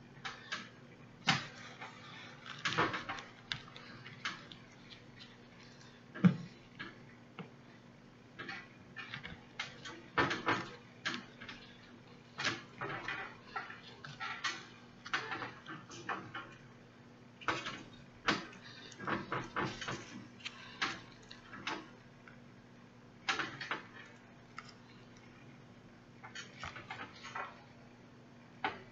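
Irregular clicks and short rustles of hands sewing a hair weft onto a mesh wig cap with needle and thread, handling the hair and pulling the thread through, close to the microphone, over a faint steady hum.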